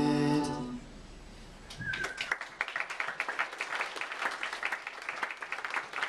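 An a cappella group's final held chord cuts off under a second in; after a short lull an audience breaks into applause that carries on to the end.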